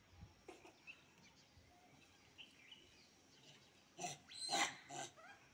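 A few short, harsh animal calls from a macaque monkey, bunched together about four seconds in.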